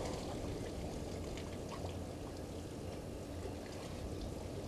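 African elephant bulls drinking: water pouring and splashing from their trunks, with small drips and splashes scattered through.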